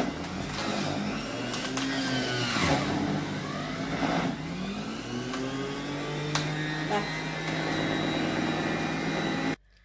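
Severin ES 3566 centrifugal juicer running on speed 1 as pineapple chunks are pushed down the feed chute. Its motor hum sags in pitch twice under the load and recovers, then holds steady before cutting off suddenly near the end.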